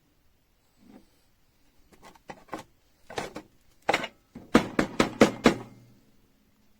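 A series of sharp clicks and knocks, irregular at first and coming faster and louder in a bunch of five near the end, with a faint low hum under the last ones.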